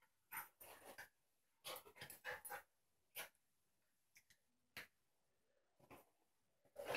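Faint sounds of a small dog and a cat play-fighting: short breathy huffs and scuffles, clustered in the first couple of seconds, then a few scattered ones.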